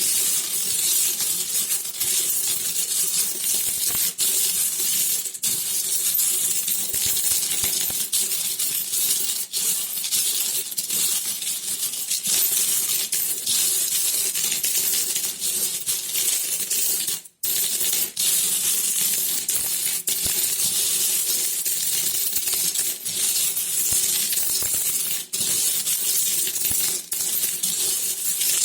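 Metal coins clinking and jingling against each other in a dense, steady stream of small clicks, with a momentary break a little past halfway.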